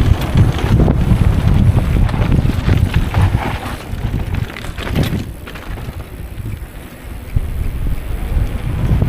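Wind buffeting the microphone on the move: a loud, rough low rumble that eases off briefly after the middle and then comes back.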